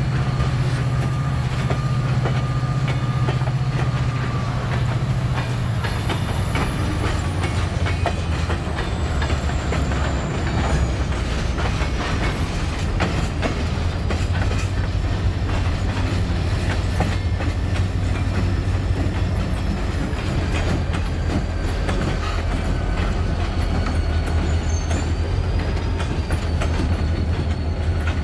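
CSX diesel freight locomotives and cars rolling past at close range: a steady low diesel engine drone with wheels clicking and clanking over the rail joints. The engine note drops in pitch about five seconds in.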